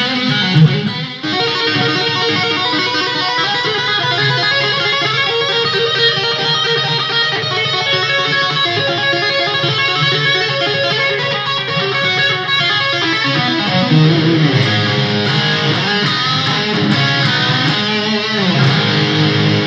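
Electric guitar being played, with notes running on without a break.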